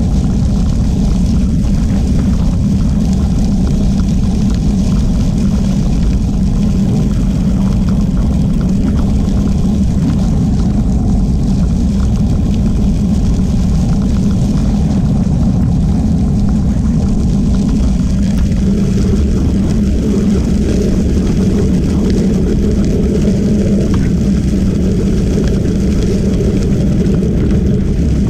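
Steady low noise of travel along a crushed-gravel trail: wind on the moving camera's microphone mixed with tyres rolling on the gravel, played back at double speed. It grows slightly fuller about two-thirds in as the speed rises.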